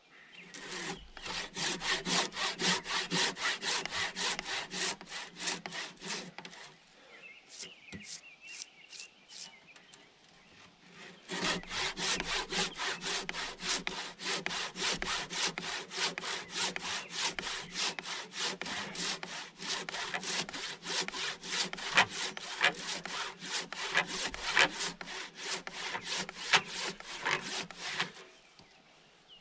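Handsaw cutting lengthwise through a log, back-and-forth strokes rasping through the wood at a steady pace. The strokes pause for a few seconds early on, then resume and run steadily until near the end.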